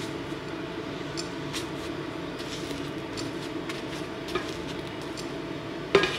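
A nylon spatula handles a roti in a nonstick frying pan, giving a few faint scrapes and clicks and one sharp knock against the pan near the end, over a steady low hum.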